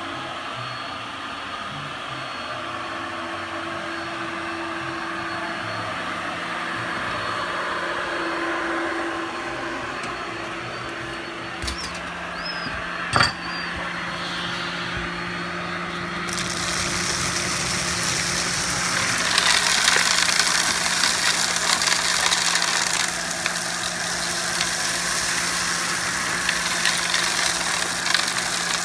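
Cyclone vacuum cleaner running with a steady motor hum that drops in pitch about twelve seconds in, followed by a sharp click. From about halfway through, a louder rushing hiss with crackling sets in as mud and broken glass are sucked up.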